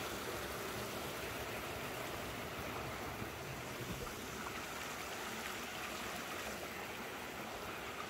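Rushing water of a canyon stream, a steady, even noise with no breaks.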